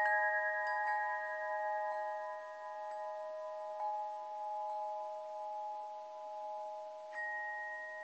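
Chime tones ringing on at several pitches together, slowly fading, with a few soft new strikes now and then, the clearest near the end.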